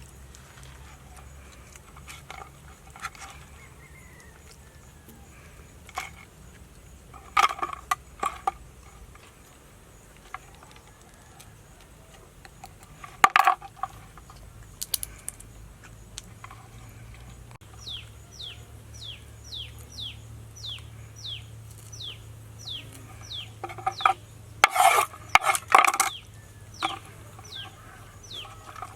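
Kitchen utensils and dishes clinking and clattering in scattered bursts. A bird chirps a quick run of short falling notes, about two a second, from the middle on.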